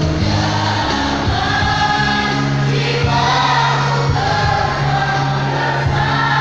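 Mixed choir singing in parts, holding long notes.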